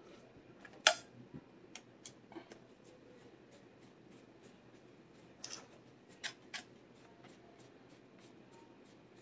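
Small clicks and taps of a flip-up sight being seated on a shotgun's rail and its mounting screw turned with a screwdriver. One sharp click about a second in is the loudest, followed by a few lighter ones, then another cluster of clicks around five to six and a half seconds.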